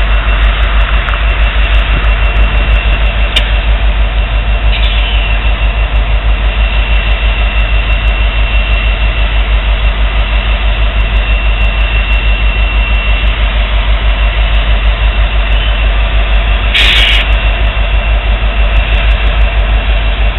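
Norfolk Southern diesel locomotives running steadily, idling or barely moving, with a deep fast engine throb and a faint high whine over it. A short hiss sounds about 17 seconds in.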